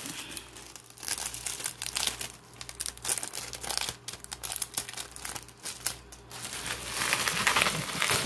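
Plastic bubble wrap crinkling and crackling as it is pulled and unwrapped by hand, with many small irregular crackles, louder toward the end.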